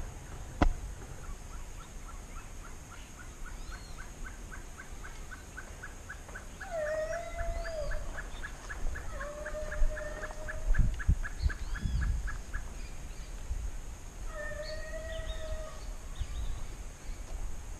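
Hunting dog baying in the distance: three long drawn howls, about 7, 9 and 15 seconds in, over a long fast run of short high repeated notes. A few dull knocks come around the middle.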